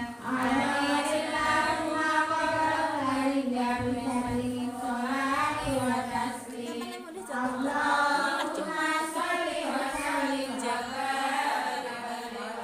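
A group of women chanting a devotional song together in unison, with long held notes and a short pause about seven seconds in before the next phrase.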